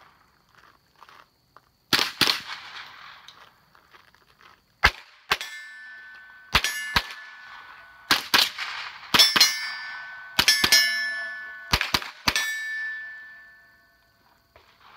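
Rifle shots fired in quick pairs, about fifteen in all, with steel targets ringing after several of them as they are hit.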